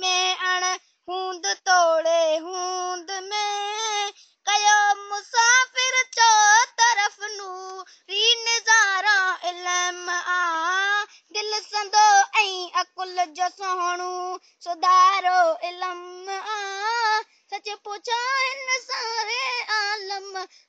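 A child's voice reciting a Sindhi poem as a sung chant: one high voice with wavering, gliding pitch, in phrases broken by short pauses and with no accompaniment.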